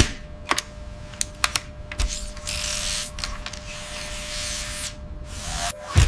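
Sound-effect clicks and ticks of small metal mechanisms in the first two seconds, then a steady hiss from a handheld power tool for about two and a half seconds, over a faint steady tone. A sharp knock comes at the very end.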